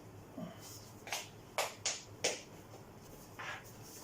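A few sharp clicks: four in quick succession starting about a second in, then a softer one near the end.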